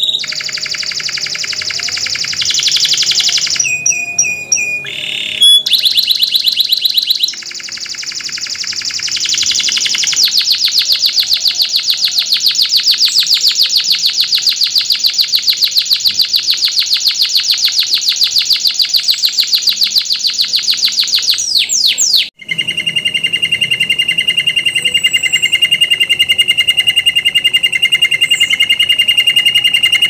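Domestic canary singing long, fast rolling trills of rapidly repeated notes. About two-thirds of the way through, the song breaks off abruptly and a lower, steadier roll takes over.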